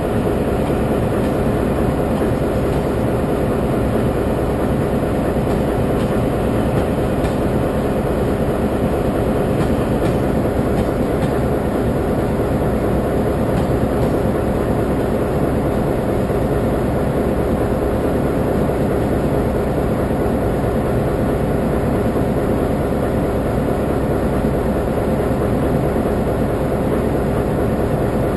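Taiwan Railway locomotive standing close by with its machinery running: a steady, unchanging rumble with a low hum.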